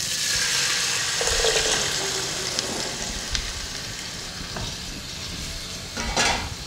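Onion-tomato masala sizzling in a nonstick pan as cooked chickpeas and their cooking water are poured in. A wooden spatula stirs and scrapes through them, with a short scrape about six seconds in.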